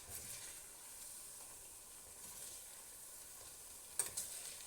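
Frozen pasta meal sizzling steadily in a pan on the stove, a faint high hiss, with a short clatter about four seconds in. The heat is high enough that the food is starting to burn.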